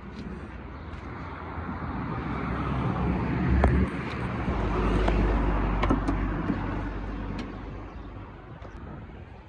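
A road vehicle passing by: its noise swells over a few seconds, peaks with a deep rumble about midway, then fades away.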